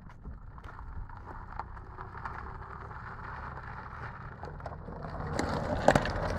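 Daihatsu Sportrak 4x4 driving slowly over loose gravel: low engine rumble with tyres crunching on the stones. It gets louder as it comes close near the end, with a few sharp crunches.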